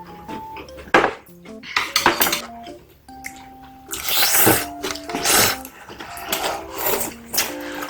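Background music, a simple melody of plain held notes, over eating sounds: sharp clinks of utensils against dishes and noisy chewing and slurping, loudest about halfway through.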